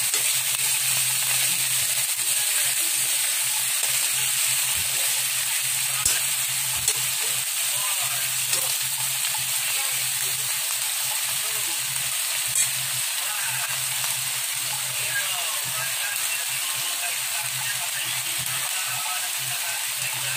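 Chicken necks sizzling in a metal wok with onion and garlic, stirred now and then with a spatula, with a few sharp knocks of the spatula against the wok.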